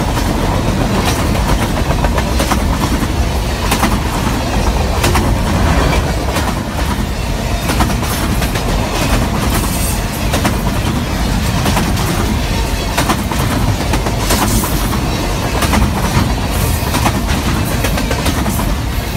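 Long freight train of boxcars rolling past close by: a steady rumble of steel wheels on rail, with repeated clacks as the wheels cross rail joints.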